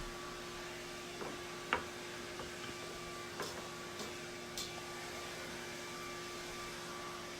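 Steady electrical hum over room tone, with a few scattered light clicks and knocks, the sharpest about two seconds in.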